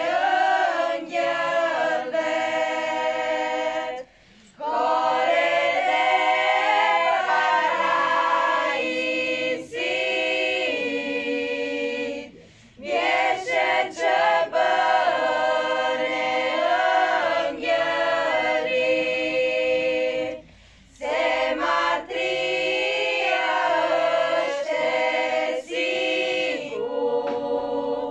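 A women's choir singing a cappella, several voices together, in long phrases broken by brief pauses for breath about every eight seconds.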